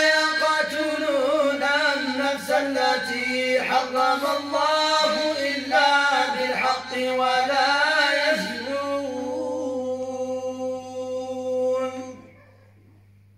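Men chanting Qur'anic verses together in the Moroccan Filali melodic style, sung into a handheld microphone. The line is drawn out and ornamented, ending on a long held note that breaks off about twelve seconds in.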